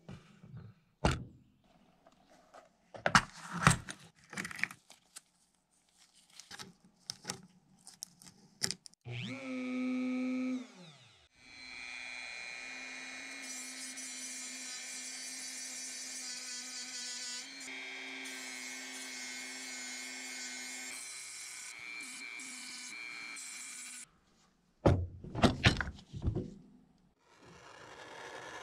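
Light knocks and handling on a metal die-cast model body, then a Dremel rotary tool spins briefly and winds down, and then runs steadily for about twelve seconds with a disc against the die-cast metal. Near the end come a few loud metal clanks, then the steady hiss of a torch flame.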